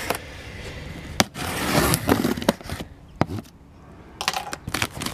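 Packing tape on a cardboard box being slit with a small plastic cutter: a scraping rasp for about three seconds with a few sharp clicks in it, then cardboard flaps rustling and snapping near the end as the box is pulled open.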